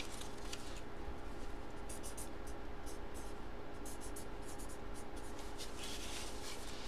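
Marker writing on a card in many short, quick strokes, over a steady low hum.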